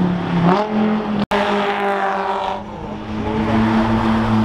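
Sports car engines running at speed on a race circuit. Just after a brief cut in the sound about a second in, one car's engine note falls in pitch as it goes past, then a steady engine note holds.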